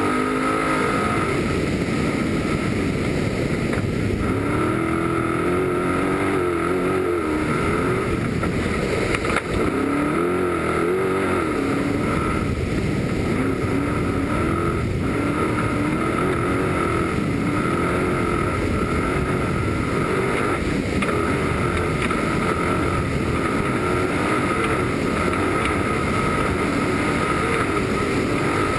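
Trophy truck's engine running hard at racing speed, its pitch rising and falling over and over with the throttle and gear changes. It is mixed with a steady rush of wind and road noise.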